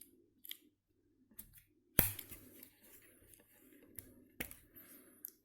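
Metal tools of a Victorinox Rangergrip 74 pocket knife being handled and moved on their springs: a sharp snap about two seconds in, the loudest sound, with several lighter clicks and soft handling noise around it.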